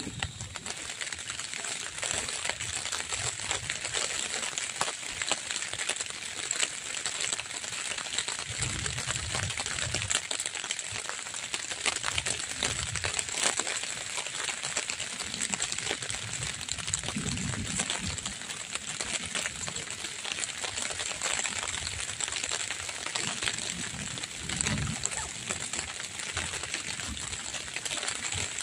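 Light drizzle pattering on the tent, heard from inside as a steady, dense run of small ticks, with a few low rumbles now and then.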